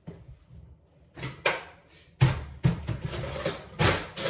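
Kitchen handling noises: a few sharp knocks and crinkling rustles as packets of Lipton onion soup mix and a bowl are handled on the countertop.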